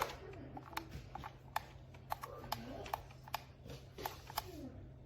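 Sharp clicks at uneven intervals, about two a second, over a steady low hum, with faint voices in the background.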